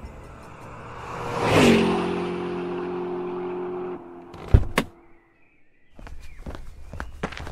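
A taxi pulling up: engine and road noise swell and drop in pitch, settle into a steady idle, and cut off about four seconds in. Two car doors then shut in quick succession, and faint footsteps start near the end.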